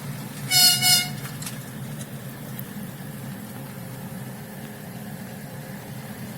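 A horn gives two short, loud toots about a second in, over a steady low rumble.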